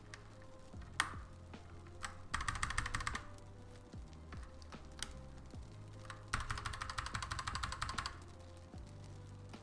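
A mechanical keyboard being typed on: two quick bursts of rapid keystrokes, the second longer, with a few single key clicks between them. Background music plays underneath.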